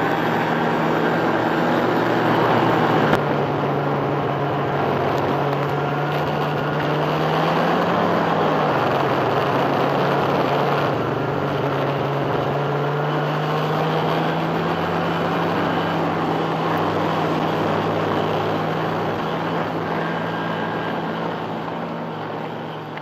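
Snowmobile engine running at a steady cruising speed, heard from the sled it is towing, with a constant rushing noise of travel over snow. The engine note rises briefly about eight seconds in, and the sound fades out near the end.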